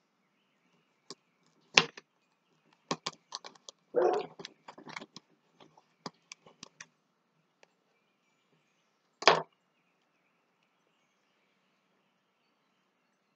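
Knife and hands working a small catfish on a cutting board during cleaning: scattered sharp knocks and clicks, thickest from about three to seven seconds in, with a louder knock near the start and another about nine seconds in.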